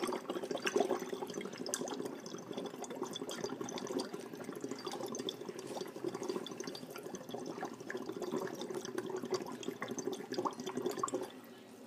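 Air blown through a drinking straw into a jar of water, bubbling steadily, then stopping about a second before the end. Breath bubbled through phenol red indicator water this way makes it acidic and turns it yellow.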